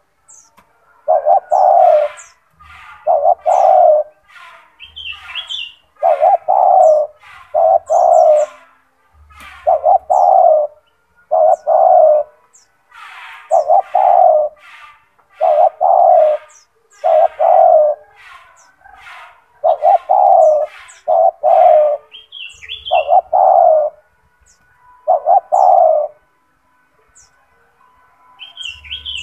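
Spotted dove (tekukur) cooing over and over, its low coo notes coming every second or so with a short pause near the end. Thin high chirps of small birds sound above it.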